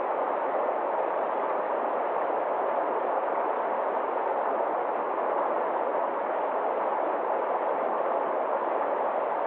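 Forest stream rushing steadily over rocks and small cascades.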